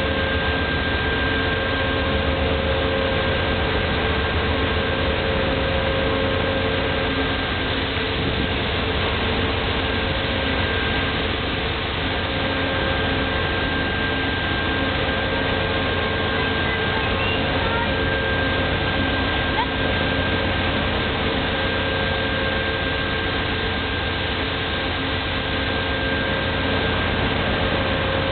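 Amtrak GE P42DC Genesis diesel locomotive standing at the platform with its engine idling: a steady, even hum with a few constant held notes over it.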